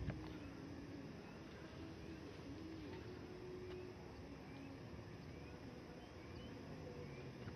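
Faint forest ambience with a bird giving a series of short rising chirps, one every half second to a second, over a faint low drone that comes and goes.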